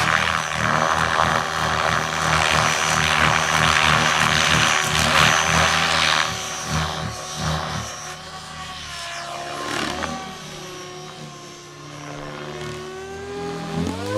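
Electric radio-controlled 3D aerobatic helicopter in flight. Its rotor blades chop and whoosh loudly close by for about the first six seconds, then grow fainter as it flies off, with the motor's whine gliding up and down in pitch.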